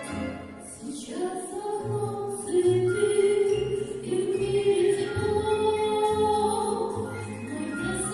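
A woman singing a slow song over instrumental accompaniment, holding long notes above a steady bass line.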